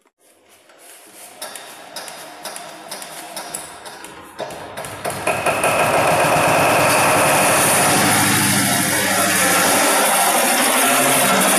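Kirloskar AV1 single-cylinder four-stroke diesel engine being hand-cranked with its decompression lever engaged, a run of knocks that grows faster and louder as the flywheel gains speed. About five seconds in, the decompression lever is dropped and the engine fires and runs, loud and steady.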